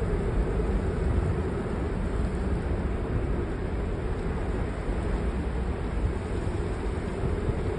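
Blizzard wind blowing hard and buffeting the microphone: a steady rushing noise with a heavy low rumble.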